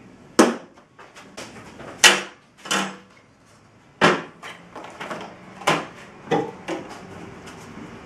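Handling noise: several sharp knocks and clacks at irregular intervals, as a plastic battery disconnect switch and its small hardware packets are picked up and set down on a car's sheet-metal cowl.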